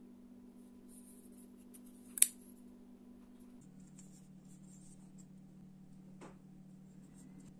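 Spyderco Spydie Chef titanium folding knife being handled and opened, with light rustling of the hand on the handle. A sharp metallic click about two seconds in is the loudest sound, and a fainter click comes near the end as the blade locks open.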